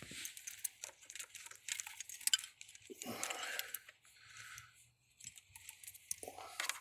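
Faint, irregular small clicks and light metallic rattles of a multimeter test lead and its alligator clip being handled and clipped onto a knock sensor wire, with a soft rustle about three seconds in.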